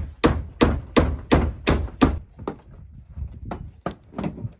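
Hammer blows, a quick run of about seven strikes in the first two seconds, then a few slower, scattered ones.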